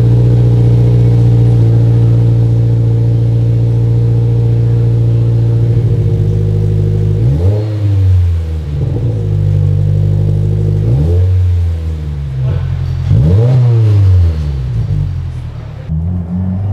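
2022 Subaru WRX's turbocharged 2.4-litre flat-four breathing through an Invidia R400 exhaust: it idles steadily, then from about seven seconds in is revved in several quick throttle blips, each rising and falling back to idle.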